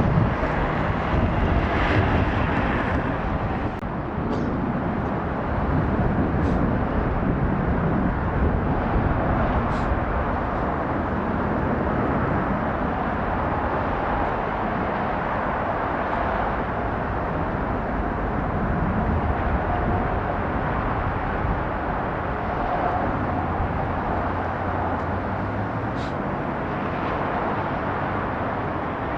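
Airbus A350-900's Rolls-Royce Trent XWB jet engines as the airliner comes in to land: a steady jet rush with gusty wind buffeting the microphone.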